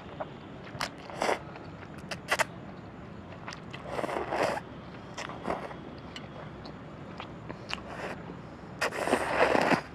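A person slurping ramen noodles in short bursts, with a longer slurp in the middle and the longest near the end, and a few sharp clicks in between.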